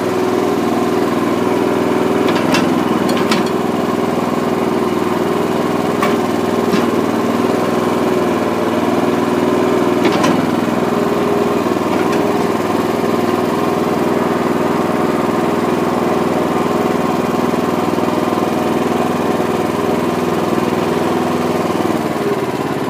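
Small gasoline engine of a towable backhoe trencher running steadily at a constant speed, powering the hydraulic pump as the boom and bucket move. A few faint clicks sound over it.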